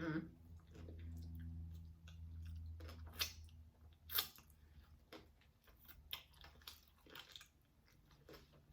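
Close-miked chewing and biting of a vegan chorizo taco: scattered wet mouth smacks and sharp little crunching clicks, with a low steady hum under the first few seconds that fades out about three and a half seconds in.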